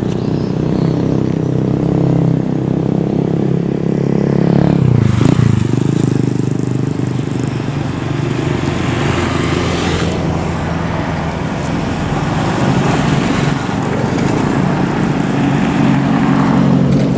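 Road traffic: heavy diesel engines running steadily as a coach bus approaches at low speed, with motorcycles passing. The engine note shifts about five seconds in.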